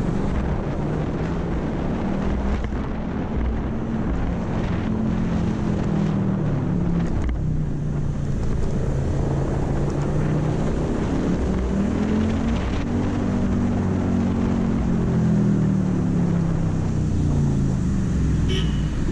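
Yamaha NMAX 155 scooter's single-cylinder engine running on the move, its pitch rising and falling with the throttle, with wind rushing over the helmet-mounted microphone. A brief high chirp near the end.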